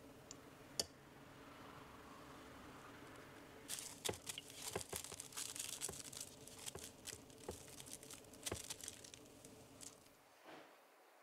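Plastic cling wrap crackling and tearing as it is pulled off the roll and stretched over a strainer bowl, an irregular run of crinkles that starts about four seconds in and lasts about five seconds. A single sharp click comes before it.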